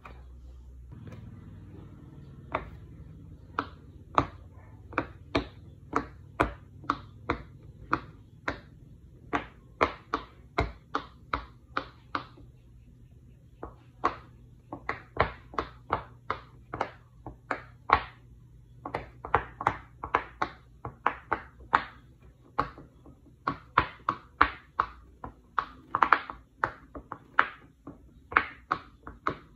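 Bubble wrap popping, one sharp snap at a time, about one or two a second. After a pause of about a second and a half midway, a silicone pop-it fidget toy's bubbles are pushed through, a steady run of pops two or three a second.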